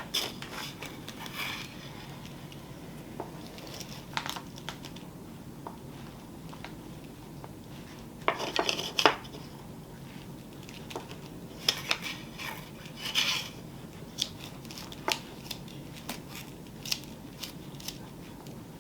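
Scattered clicks, light clinks and rustles of hands working on an artificial Christmas wreath during a repair, with the busiest handling about halfway through.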